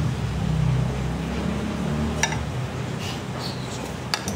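Metal spoon clinking against a soup bowl while eating: one clink about halfway, then two quick ones near the end, over a low steady background hum.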